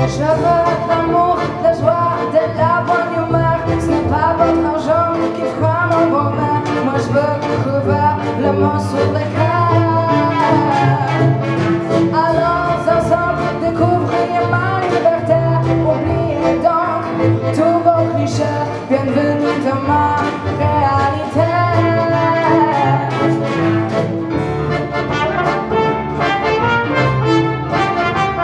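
Live jazz combo playing: a woman's voice carries the melody over double bass, drums, piano and accordion, and brass comes to the fore near the end as a trumpet is played.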